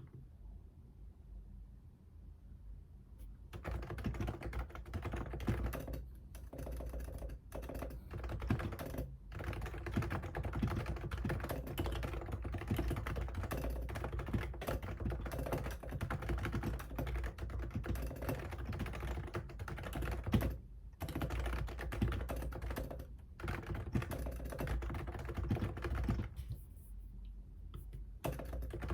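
Computer keyboard being typed on in fast, continuous runs of keystrokes, starting about three seconds in, with a few short pauses and easing off near the end.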